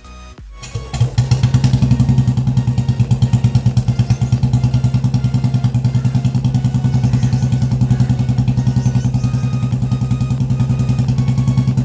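Royal Enfield Bullet 350 BS6 single-cylinder engine starting about a second in and settling into a steady, evenly pulsing idle through a stock silencer fitted with a C-bend pipe and short bottle end.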